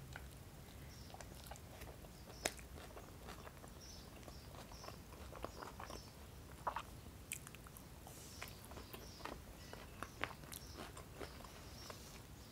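Faint close-miked eating sounds of a person chewing a soft wrap of çiğ köfte: scattered wet mouth smacks and small clicks, the sharpest about two and a half seconds in.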